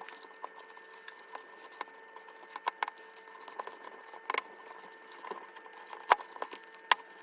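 A spoon stirring thick banana batter in a mixing bowl, with irregular clicks and taps of the utensil against the bowl.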